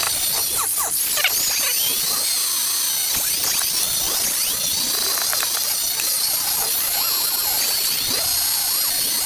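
Dumore model 8226 sensitive drill press's high-speed brushed motor running rough: a scratchy squeal with a wavering, unsteady whine instead of a smooth tone. The owner thinks the fault could be bearing related rather than only the worn brushes.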